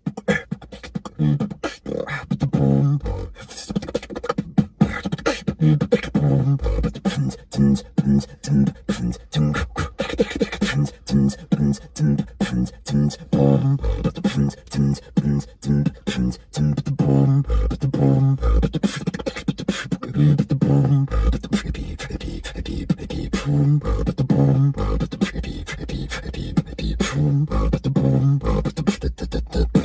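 Solo beatboxing: a fast, steady groove of vocal kick and snare clicks over a repeating low pitched bass sound.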